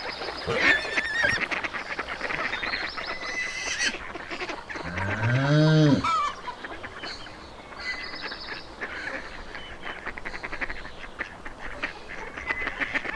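Farmyard geese and ducks honking and quacking in a busy chorus. About five seconds in, a single low drawn-out animal call rises and falls and is the loudest sound.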